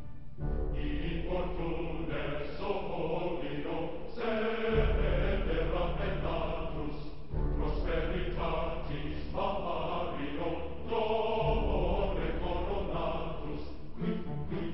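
Music soundtrack with chant-like choral singing in long held phrases over a deep bass.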